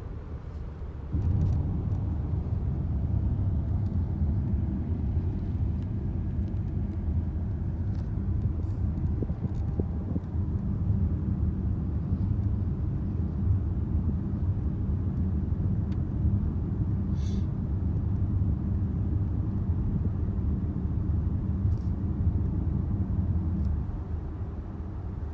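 Steady low mechanical rumble, like a running vehicle, that jumps louder about a second in, holds steady, and eases back down near the end.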